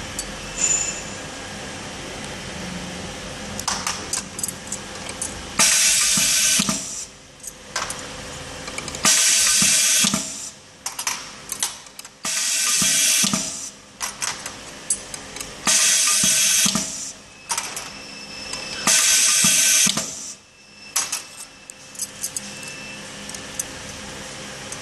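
Fold-over flag labeling machine running through five label cycles: a steady motor hum and small clicks, broken by five loud hissing bursts of about a second each, roughly every three seconds. Each burst comes as a label is folded around a wire rod.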